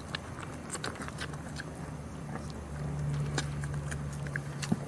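Puppies nursing from their mother, with scattered wet suckling smacks and clicks and a brief squeak. A low steady hum swells underneath for about two seconds in the second half.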